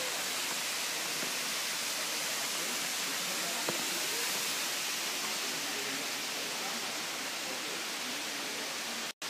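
Waterfall rushing, a steady even hiss of falling water, broken by a split-second dropout near the end.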